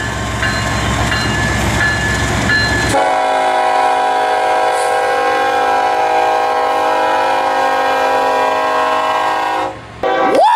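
Train rumbling with a bell dinging about twice a second. Then a locomotive air horn sounds one long steady chord from about three seconds in until near the end. A short rising horn note follows just before the end.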